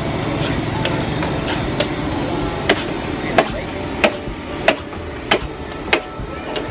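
Metal spatula clanking against a large steel wok as a big batch of fried rice (nasi goreng) is stirred and tossed, a sharp clank about every two-thirds of a second, over a steady rushing noise.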